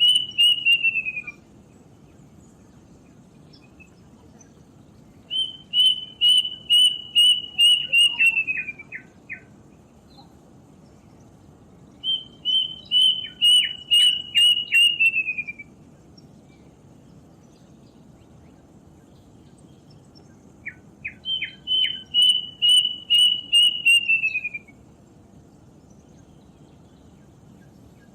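Plaintive cuckoo singing: phrases of about eight clear, evenly spaced whistled notes at one pitch that slide down at the end. One phrase is finishing at the start, then three more follow about seven seconds apart, two of them with a few lower short notes mixed in.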